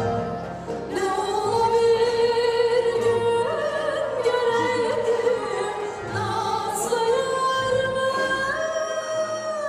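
Female singer performing a Turkish folk song (türkü) live with a microphone, holding long wavering, ornamented notes. She is accompanied by a Turkish folk ensemble of bağlama and kanun.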